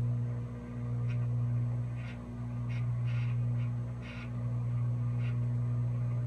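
Microwave oven running with a steady low hum that dips briefly now and then. About seven short crackles come from the food cooking inside.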